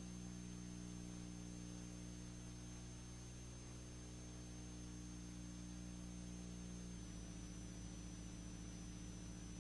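Faint electrical hum and hiss with a thin, steady high whine: the background noise of a silent film's transfer, with no soundtrack of its own. The hum changes character about seven seconds in.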